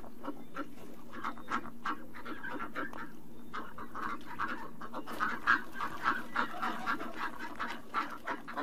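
Ducks quacking, a rapid run of short calls, over a steady low hum.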